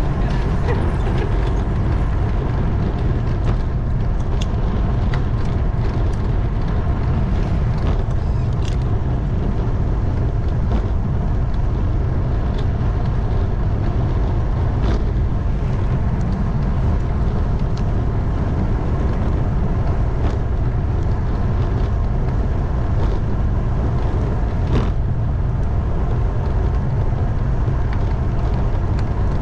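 Steady low rumble of wind on the microphone and road noise while moving, with scattered light clicks and rattles.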